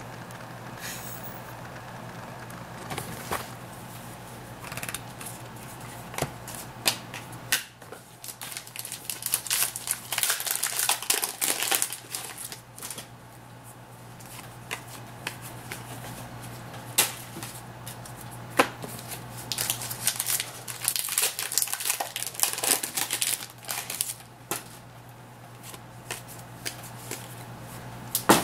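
Trading-card pack wrappers crinkling and cards being handled and flicked through, with sharp clicks scattered throughout and two bursts of dense crinkling, one about a third of the way in and another past two-thirds. A steady low hum sits underneath.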